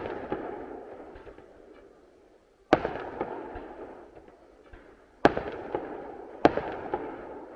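Fireworks going off: three sharp bangs, at about two and a half, five and six and a half seconds in, each followed by a rumbling echo that slowly dies away.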